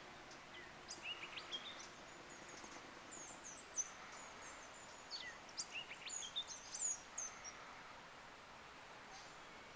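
High-pitched animal chirps and short twittering calls over a faint steady background hiss. The calls come in a brief cluster about a second in, then a denser run of quick rising and falling chirps from about three to seven and a half seconds in.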